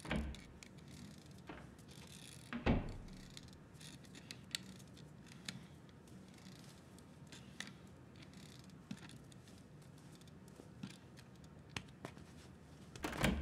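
Faint, scattered small clicks and ticks of a toy car being rolled back and forth on a tabletop. A louder thump comes a little under three seconds in, and a few knocks come near the end.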